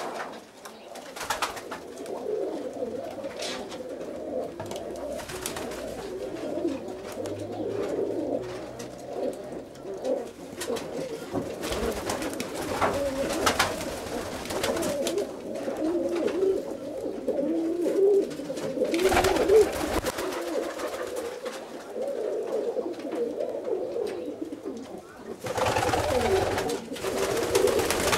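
Domestic roller pigeons cooing steadily and without a break. Sharp short noises come now and then, with a louder rustling burst near the end.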